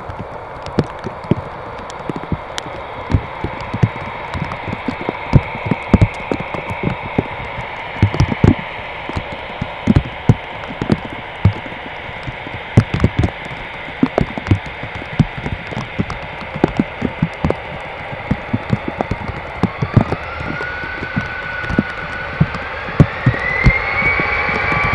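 Airbus A319-112's CFM56 jet engines humming steadily, heard from inside the cabin, with many irregular sharp knocks and taps over the top. From about 20 seconds in, a whine rises in steps as the engines spool up, getting louder near the end.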